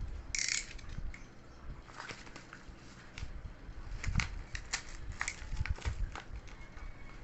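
Typing on a mechanical keyboard: irregular clacks of keys being pressed and released, with a louder burst about half a second in.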